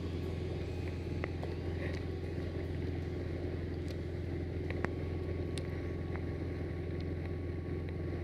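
A 2003 Moomba wake boat's engine running at a steady speed, a constant low drone, over the wash of water, with a few faint ticks.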